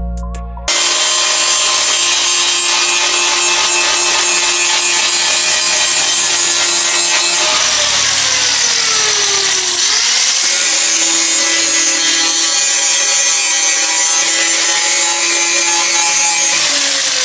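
Electric power tool with a motor whine working steel, starting suddenly and running steadily with a dense hiss. About halfway through, the motor's pitch sags under load for a couple of seconds, then picks back up.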